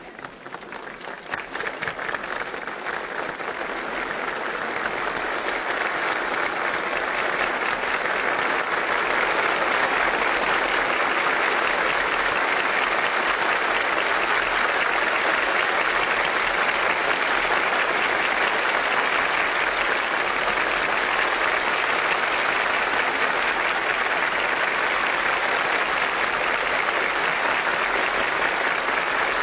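Large audience applauding, the clapping swelling over the first several seconds and then holding steady.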